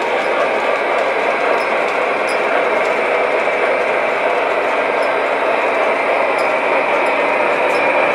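Model steam locomotive and freight cars rolling along the layout track: a steady rumble of wheels on rail with faint, scattered clicks.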